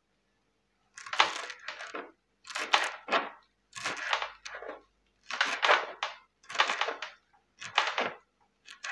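Kitchen knife chopping fresh coriander leaves on a plastic cutting board: about seven quick runs of blade strokes against the board, roughly a second apart.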